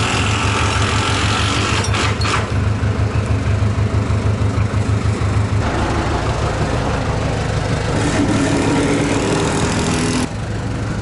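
An engine running steadily with a low hum, with a couple of sharp knocks about two seconds in.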